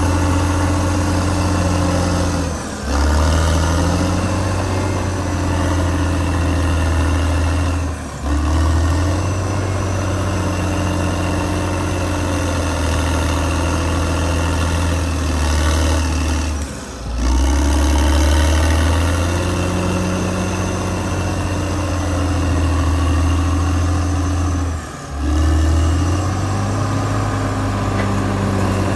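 Caterpillar D6R XL bulldozer's diesel engine running steadily with a deep low hum, its pitch shifting a little from stretch to stretch. The sound briefly drops four times.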